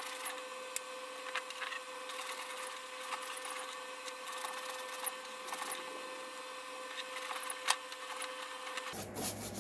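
King Canada benchtop parts washer's small electric pump running with a steady hum, cleaning fluid flowing out through the flow-through brush as metal parts are scrubbed in the tub, with a few light clicks of metal.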